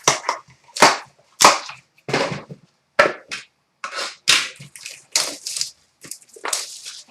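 Trading cards and their packaging being handled: about ten short, sharp scrapes and rustles, irregularly spaced, with quiet gaps between them.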